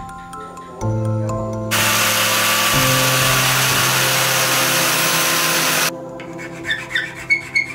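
Power tool abrading a rusty steel chisel: a steady, rough hiss that cuts in abruptly about two seconds in and stops just as abruptly some four seconds later, over background music.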